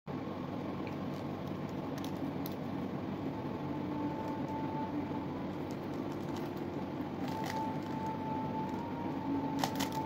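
Steady room hum with scattered faint plastic clicks from a Rubik's Cube being turned, the clicks coming more often near the end.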